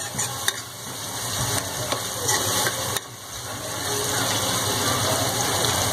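Onion-tomato masala sizzling as it fries in a kadhai, stirred with a steel ladle that now and then taps against the pan.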